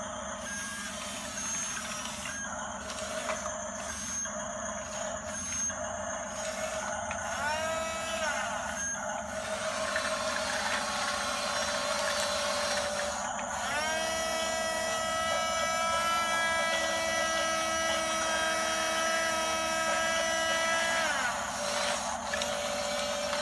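Small electric drive motors of a radio-controlled toy bulldozer running in spurts. A whine rises in pitch, holds steady and falls away, once briefly about seven seconds in and again for about seven seconds from roughly the middle.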